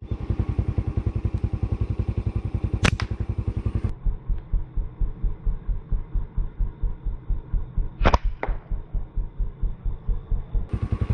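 Small motorcycle engine idling with a rapid, even low beat that slows after about four seconds. Over it come sharp snaps of a rubber-band slingshot being shot: one about three seconds in and two in quick succession about eight seconds in.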